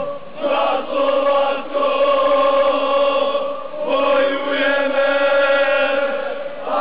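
Crowd of football supporters singing a chant together, in long held notes, phrase after phrase, with short breaks between them.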